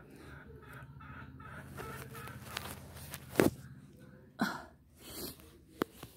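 A phone being handled: a few sharp knocks and rustles, the loudest about halfway through, over a low steady hum.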